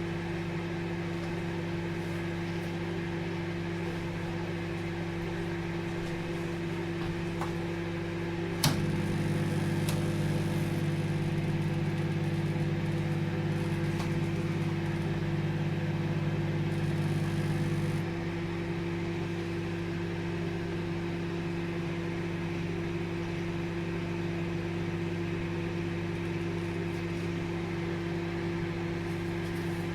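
Microwave oven running with a steady electrical hum. About nine seconds in, a sharp click comes and the hum turns louder and deeper for about nine seconds, then drops back to the lighter hum.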